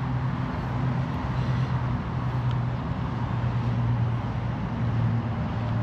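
Steady low hum of urban background noise, with a faint hiss above it.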